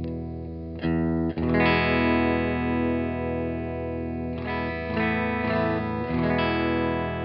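Electric guitar chords from a Fender Telecaster fitted with a Cavalier 'The Wolf' neck pickup, played through a Vintage Sound 22SC tube amp with an Eminence GA-SC64 speaker and LPD Pedals Cascade reverb. The chords ring out, with a new chord struck about a second in, again soon after, and several more in a quick run after about four seconds.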